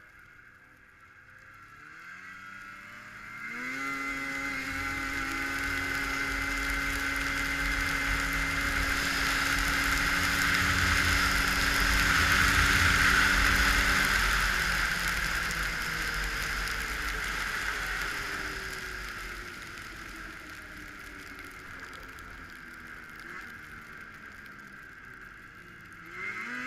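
2006 Arctic Cat F5 snowmobile's 500 cc two-stroke engine accelerating hard at wide-open throttle, its pitch climbing over the first few seconds and then holding high under a loud rush of wind noise that builds with speed. About halfway through, the engine's pitch and loudness fall back as it slows, with a short rev near the end.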